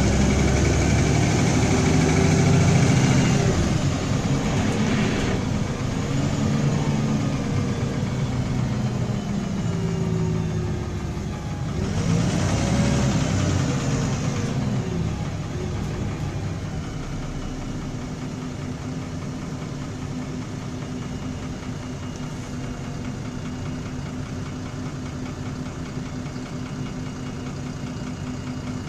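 MAN diesel engine of an Alexander Dennis Enviro 300 bus, heard from inside the passenger saloon, with the rattle the engine is known for. It runs louder and changes pitch through the first half, picking up revs again about twelve seconds in. In the second half it settles to a quieter, steady drone.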